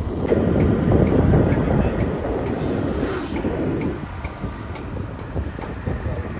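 Riding along a road in a moving vehicle, with a rushing, rumbling wind and road noise. It is loudest for the first few seconds and eases after about four seconds.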